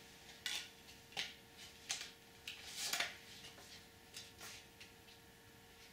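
A CD and its plastic jewel case being handled: a run of short, sharp plastic clicks and rattles, the loudest cluster about three seconds in.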